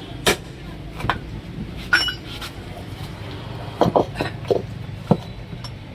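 Irregular metallic clinks and knocks, about eight in all, one near two seconds in ringing briefly, as metal tools are handled during a tyre change.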